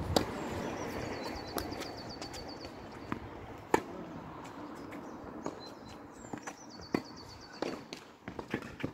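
Tennis rally on a hard court: a ball struck by rackets and bouncing, sharp pops a few seconds apart, the loudest nearly four seconds in. A bird trills in the background twice.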